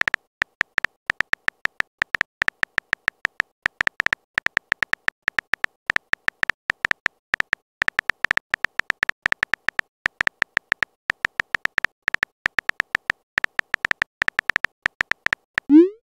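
Phone-keyboard typing sound effect: quick clicks with a bright tick, several a second in uneven runs, and a short rising pop near the end.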